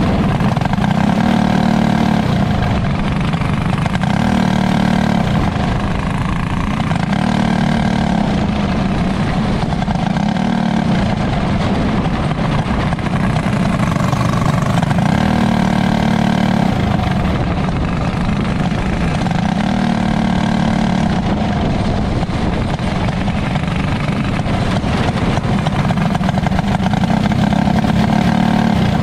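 A small winged sprint car's engine heard from onboard while racing on a dirt oval. It runs hard, its pitch and level rising and falling in a repeating cycle every few seconds as the driver accelerates down the straights and eases into the turns, with wind rush over the top.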